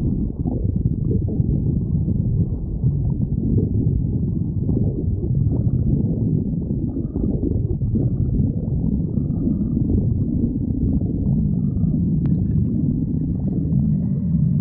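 Stomach growling: a continuous low rumble at a steady level, with no breaks.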